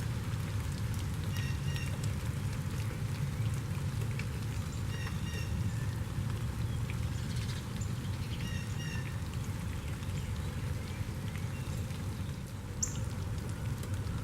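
Steady rain with scattered drops pattering, over a constant low rumble. A songbird calls short repeated phrases every few seconds, with one sharp high note near the end.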